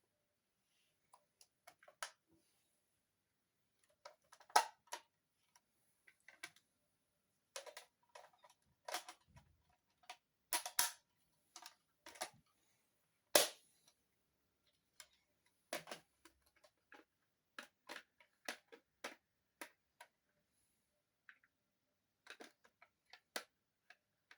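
Plastic parts of a DaikaiOh robot toy clicking and clacking irregularly as its joints are moved and pieces snapped into place while it is folded into Lobster Zord mode. A few sharper, louder clacks stand out.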